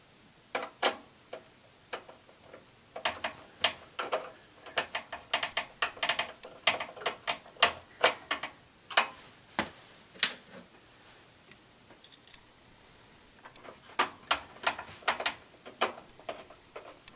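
A ratcheting screwdriver clicking in quick irregular runs, with pauses between, as a screw is driven in at the case's rear expansion-slot bracket to hold the graphics card.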